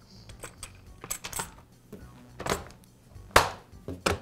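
Plastic clicks and knocks as the clamshell cover of a Black and Decker string trimmer's motor housing is set back on and pressed into place. There are a few light clicks and a sharper knock about three seconds in.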